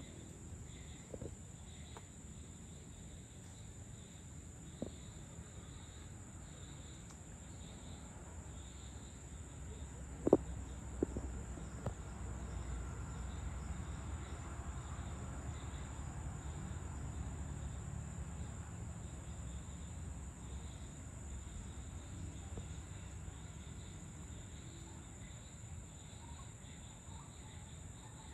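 Dusk chorus of insects: a steady, high-pitched shrill with a softer repeating pulse under it. A low rumble swells and fades through the middle. A few sharp clicks come about a third of the way in, the loudest sounds here.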